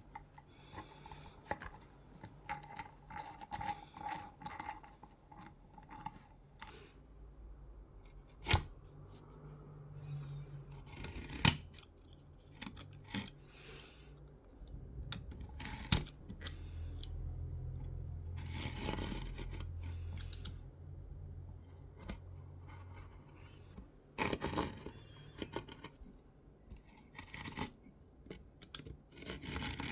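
Scissors cutting a thin 0.2 mm oven liner sheet: irregular snips and sharp clicks, with a few longer rasping cuts in the second half.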